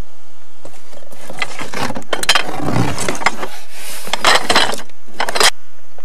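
Rummaging through a box of assorted objects: rustling with many clattering knocks and clicks, stopping abruptly near the end.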